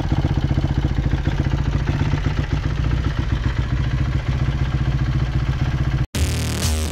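Kawasaki KX250F's four-stroke single-cylinder engine idling steadily on its stand while warming up, with a fast even pulse. It cuts off abruptly about six seconds in, and electronic music starts just before the end.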